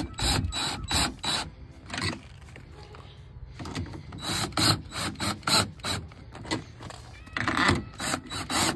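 A dent-pulling rig's threaded tension rod being turned, giving a rhythm of sharp mechanical clicks about four to five a second. The clicks come in runs, with a quieter pause about two seconds in, as tension is wound onto the glued pull tabs.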